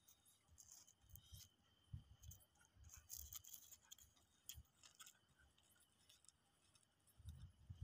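Near silence, broken only by faint, scattered short ticks and scuffs.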